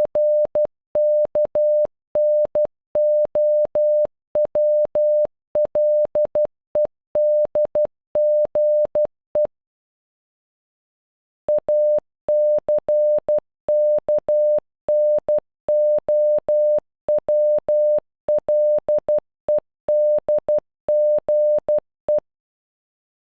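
The word ACKNOWLEDGE (.- -.-. -.- -. --- .-- .-.. . -.. --. .) sent in Morse code as a single-pitched electronic beep keyed into short dots and long dashes. The word plays through, there is a pause of about two seconds near ten seconds in, and then the whole word is sent again.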